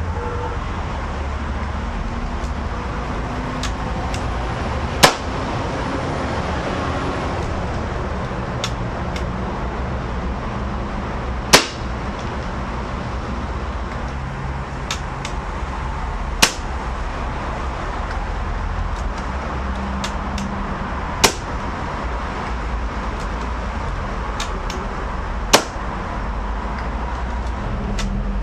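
Hatsan AT44 PCP air rifle fired five times, a sharp crack every four to five seconds, over a steady low background rumble.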